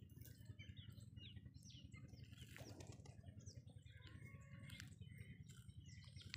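Faint chirping of small birds: many short, high calls and quick falling chirps scattered throughout, over a low steady hum.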